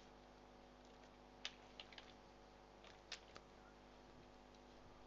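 A few faint, sharp clicks of computer input, in two small clusters, over a low steady hum.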